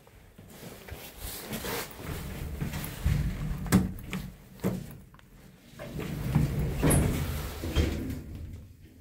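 Jiangnan Express HOMEX5100 passenger elevator's sliding doors moving, with a series of knocks and rattles over a low rumble.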